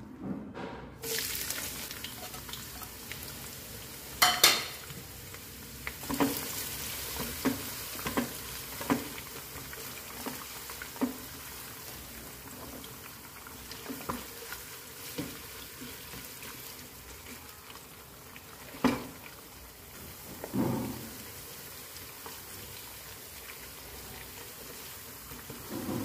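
Sliced onions sizzling steadily as they fry in hot oil in a granite-coated pot, the sizzle starting about a second in as they go into the oil. A silicone spatula stirring them knocks and scrapes against the pot at irregular moments, loudest about four seconds in and near nineteen seconds.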